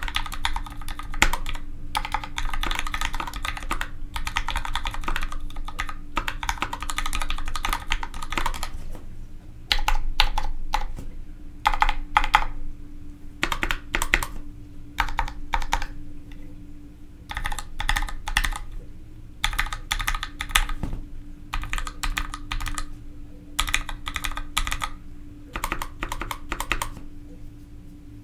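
Typing on a 65% mechanical keyboard with Gateron Ink Black linear switches, fitted with Gateron Yellow springs, under GMK doubleshot ABS keycaps. The typing is fast and continuous for about the first nine seconds, then comes in shorter bursts of keystrokes with brief pauses between.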